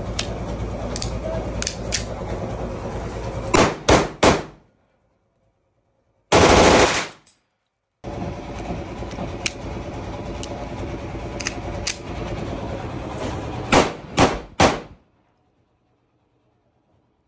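Semi-automatic 1911-style pistol being test-fired: two strings of three quick shots, about a third of a second apart, one near 3.5 s and one near 14 s. Each string rises out of steady background noise with lighter clicks before it. Between the two strings comes a very loud blast lasting about a second.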